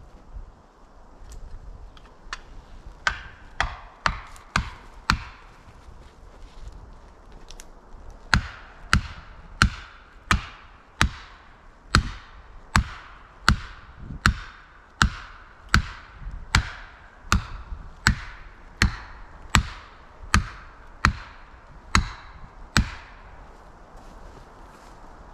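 A hand tool striking a felled or hung-up tree over and over, each blow a sharp crack with a short ring: a few blows, a pause, then a steady run of about twenty, roughly one every three quarters of a second, trailing off near the end.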